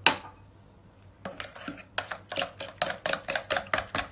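A sharp knock at the start, then a hand wire whisk beating the eggs, sugar, oil and milk of a cake batter in a bowl, clicking against the bowl about five times a second from about a second in.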